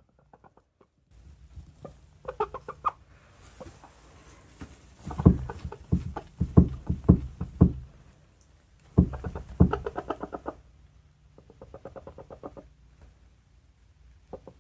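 Pet hen making low, rapid rattling clucks in several bouts, with a run of sharp taps in the middle.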